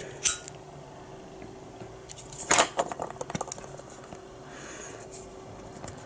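Scattered clicks and clinks of small hard objects being handled, the loudest a sharp click about two and a half seconds in, over a faint steady hum.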